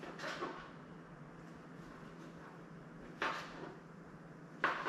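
Kitchen knife knocking on a cutting board while slicing mango: three sharp knocks, one just after the start and two close together near the end.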